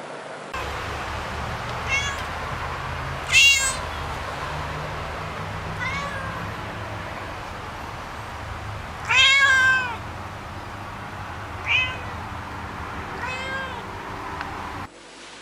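Domestic cat meowing about six times, the calls rising and falling in pitch. One long, loud meow comes about nine seconds in and a sharp high one at about three and a half seconds, all over a low steady hum.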